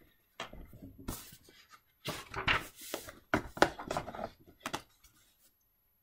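Irregular handling noises close to the microphone: knocks and clicks mixed with rustling. They are sparse at first and get busier and louder from about two seconds in.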